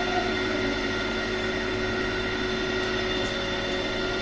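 A steady mechanical hum, holding several fixed tones at an even level.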